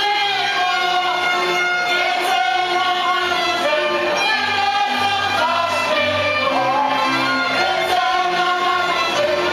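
A group of voices singing a Slovak folk song together, with instruments playing underneath.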